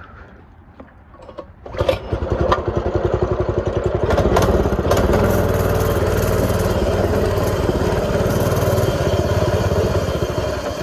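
X1 pocket bike's small two-stroke engine catching about two seconds in and running, getting louder around four seconds in and easing off near the end.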